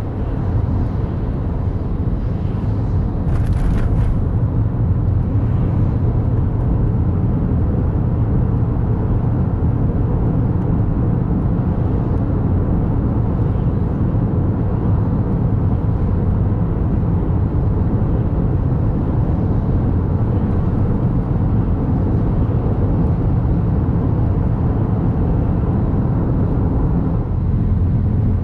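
Steady low road and engine rumble of a Daihatsu Wake kei car being driven, with a brief hiss about three seconds in.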